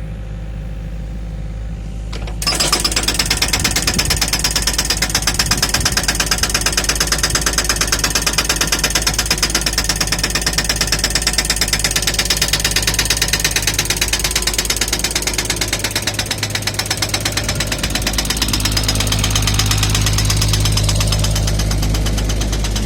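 The hydraulic breaker hammer on a Doosan DX55W wheeled excavator starts about two seconds in and keeps pounding with rapid, even blows over the machine's diesel engine. The engine note grows stronger near the end.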